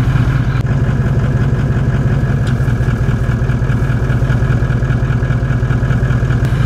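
Ute's engine idling steadily, heard from right underneath the vehicle: a loud, low drone with a fast, even pulse.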